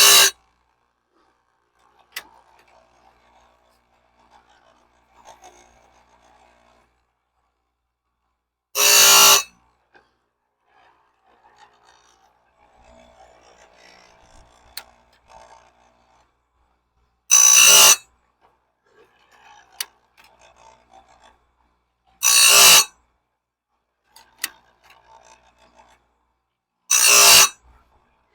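Electric chainsaw-chain sharpener grinding a bandsaw blade tooth by tooth: four short bursts of grinding, each under a second, spaced about five to nine seconds apart, with small clicks in between.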